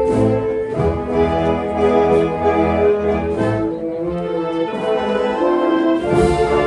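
Instrumental music with sustained chords.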